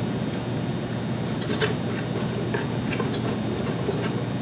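KitchenAid stand mixer motor running steadily, its wire whisk beating lace icing mix in a stainless steel bowl, with a few light clicks.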